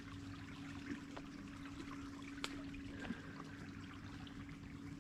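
Faint water trickling and lapping around a small boat, under a steady low hum.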